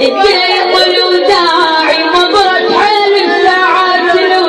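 A woman's voice chanting a mournful Arabic na'i lament, unaccompanied, in long notes that bend and slide in pitch.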